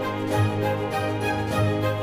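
Background music with sustained instrumental notes over a steady, quick beat.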